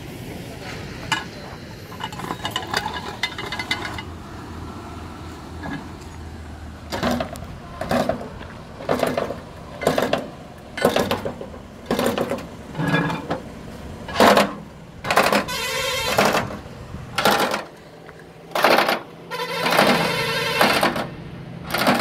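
Repeated blows on metal at a broken truck leaf spring under repair, starting about seven seconds in and coming roughly once a second, a few of them ringing on longer.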